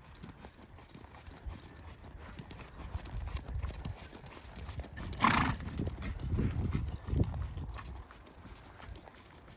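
A horse's hoofbeats, an irregular run of thuds that grows busier through the middle, with one short, loud burst of sound about five seconds in.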